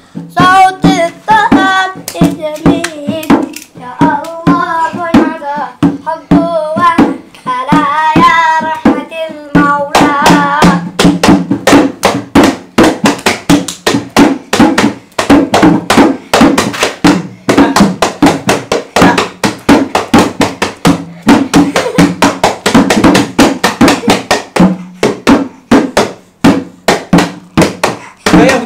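Small hand drum beaten with the hands in a quick, steady rhythm, with voices singing over it for roughly the first ten seconds, after which the drum carries on alone.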